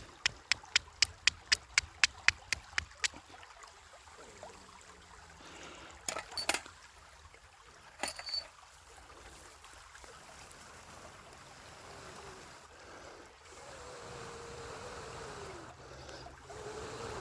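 Steel striking flint: a rapid run of about a dozen sharp strikes, roughly four a second, over the first three seconds, then two short clusters of strikes around six and eight seconds in. A soft rushing noise builds near the end.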